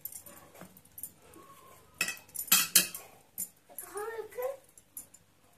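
Hands kneading soft dough in a stainless-steel plate, with a few sharp metallic clinks about two to three seconds in. A short wavering whine follows about four seconds in.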